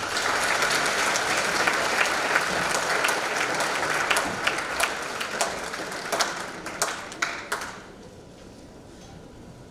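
Audience applauding, dense at first, then thinning to a few scattered claps and dying away after about eight seconds.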